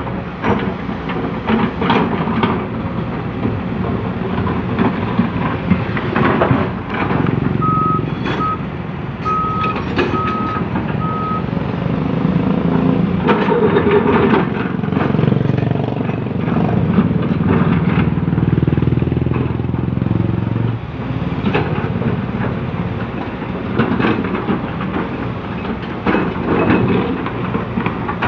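Komatsu PC200CE excavator's diesel engine working, with knocks and clanks throughout. The engine grows louder and heavier under load from about 13 to 21 seconds in. A reversing alarm beeps in a short even run, about eight to eleven seconds in.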